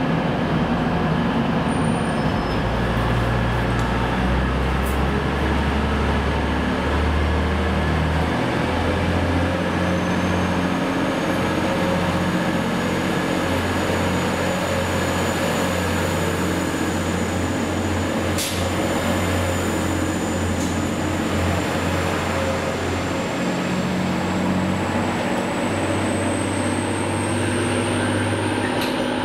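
TransPennine Express Class 185 diesel multiple unit running along the platform, its Cummins diesel engines giving a deep note that shifts pitch in steps. A sharp click comes once, past the middle, and a faint high whine rises in pitch through the second half.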